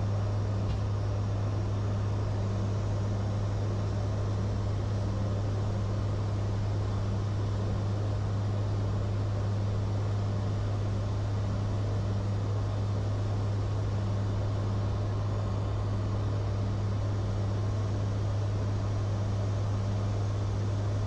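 Steady drone of an aircraft cabin in flight: a strong low hum with a slow, pulsing beat above it, under an even rushing noise.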